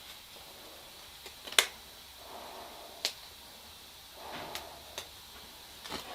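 Electrostatic powder-coating gun in use on a grounded part, with faint puffs of spray hiss. About five sharp clicks or snaps come at irregular intervals of roughly a second.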